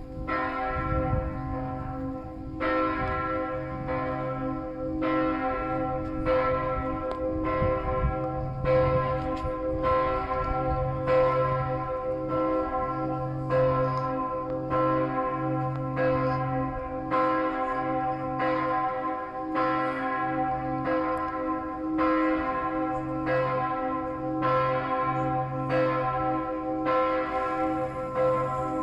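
Several large church bells swinging and ringing together in a full peal, their strikes overlapping at an uneven rhythm of about one a second, each stroke ringing on under the next. This is the midday ringing.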